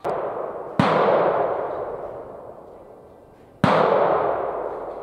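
Shotgun shots: a quieter shot right at the start, then two loud close shots a little under three seconds apart. Each rings out with a long echo that slowly dies away.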